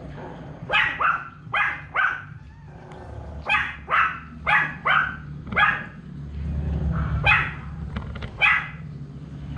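A dog barking in a string of about ten short, sharp barks, some in quick pairs, with a pause of about a second around the middle.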